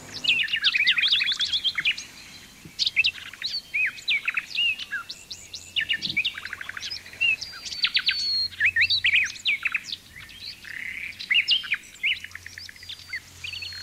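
Several songbirds singing over one another: quick chirps, short trills and high whistled notes in overlapping phrases.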